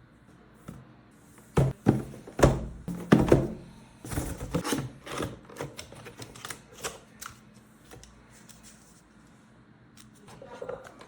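A product box and its packaging being handled and opened: a few sharp knocks and taps, then a spell of rustling and light clatter that dies away.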